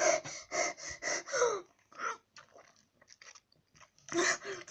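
A boy's quick, breathy gasps and whimpers, about three a second, through an open mouth holding six sour lemon candies, a reaction to their sourness. Then small wet mouth clicks as he works the candies, and another breathy outburst near the end.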